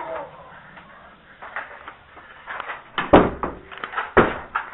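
Rustling and light knocks, with two louder dull thumps about three and four seconds in.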